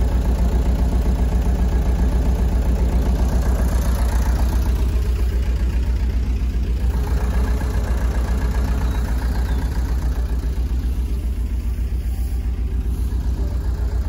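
Gehl 5635 SXT skid steer's turbo diesel engine idling steadily with an even low pulse, running well.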